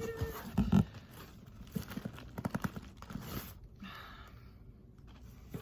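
Cardboard shipping box being handled and opened: a run of knocks and taps, with one heavier thump about a second in and a quick cluster of clicks a little later.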